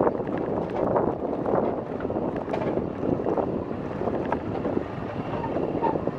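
Steady rushing roar of a river waterfall, with wind gusting on the microphone.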